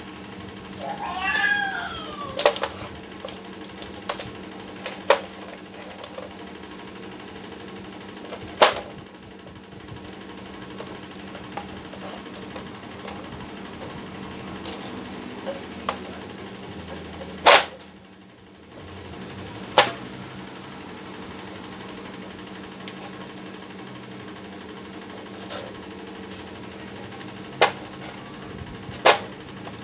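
A cat meows once, a bending call of about a second and a half shortly after the start. After that come scattered sharp taps and clicks, a few seconds apart, over a steady low hum.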